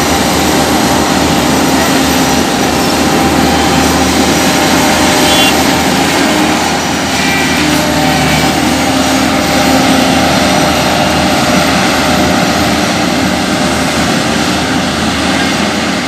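Heavy diesel engines of road-paving machinery, an asphalt paver with a road roller alongside, running steadily at close range; loud and even, with no change in pace.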